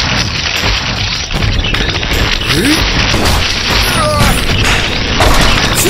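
Animated action soundtrack: background music under booming, crashing impacts and mechanical clanking sound effects for a swarm of walking spider robots.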